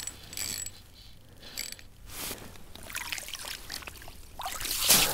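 Small clicks and rustling of an ice-fishing rod and line as a lake trout is pulled up by hand through the hole and onto the ice. A louder scuffle just before the end as the fish is handled on the ice.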